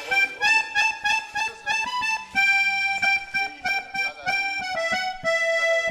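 Background music: a melody of held notes over a steady rhythmic accompaniment.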